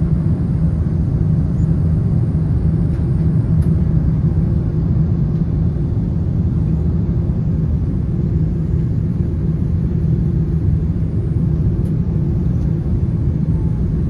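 Airliner cabin noise at cruise above the clouds: a steady low rumble of jet engines and airflow heard from a window seat, with a constant low hum running through it.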